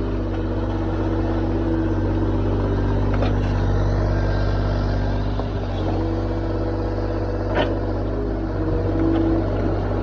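Excavator's diesel engine running steadily under a low hum, with a few sharp knocks from the machine at work.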